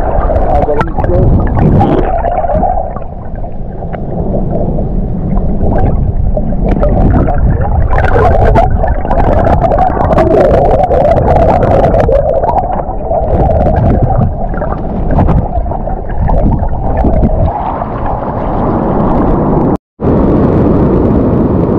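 Loud, churning sea and wind noise battering the microphone on wave-washed rocks, with scattered knocks and clicks. The sound cuts out for a moment near the end.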